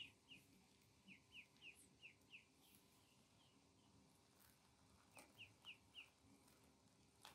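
Ducklings peeping: short, high chirps that each fall in pitch, faint, in two quick runs, one at the start and one about five seconds in.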